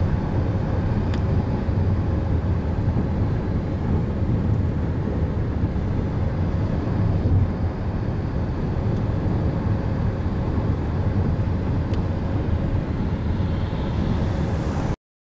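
Steady road rumble of a car travelling at highway speed, heard from inside the car; it cuts off abruptly near the end.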